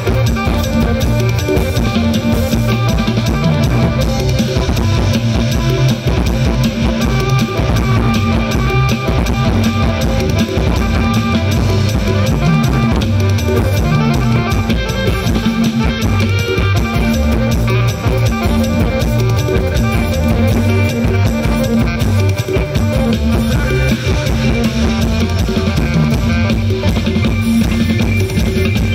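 Live mor lam sing band music through a large outdoor PA: drum kit with a steady kick-drum beat, heavy bass, guitar and keyboard, loud and continuous.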